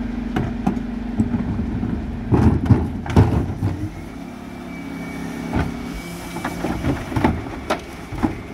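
Dennis Elite 6 refuse truck running at the kerb while its Terberg bin lift works. Plastic wheelie bins knock and clatter against the lift a couple of seconds in. From about halfway there is a steady thin hydraulic whine as the lift raises a bin to tip it, with a few sharp knocks.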